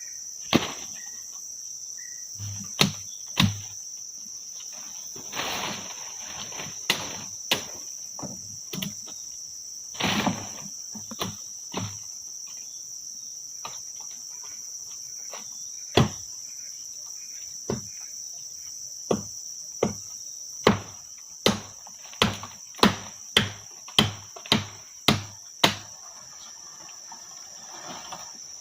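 Steady high-pitched chirring of forest insects throughout, over scattered sharp knocks and brief rustles of someone working by hand. Toward the end comes a run of about a dozen evenly spaced strikes, a little under two a second, like chopping or hammering.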